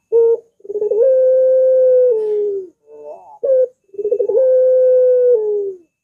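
Barbary dove (puter) cooing twice: a few short stuttering notes, then a long drawn-out coo that steps up in pitch, holds steady for over a second and drops away at the end.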